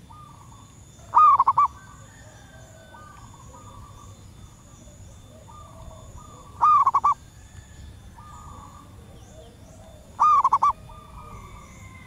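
Female zebra dove calling three times, each call a quick run of about four cooing notes lasting about half a second. Fainter bird calls and high chirps carry on in the background.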